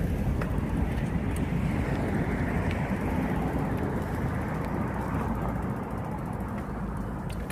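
Steady rumble of wind and rolling road noise picked up by a phone clipped to a moving bicycle, with a few faint clicks.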